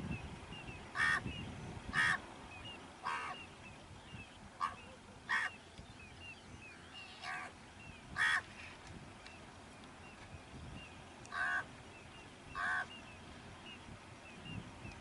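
Asian pied starlings (pied mynas) calling: about nine short, loud, harsh squawks at irregular intervals, with faint high chirps in between.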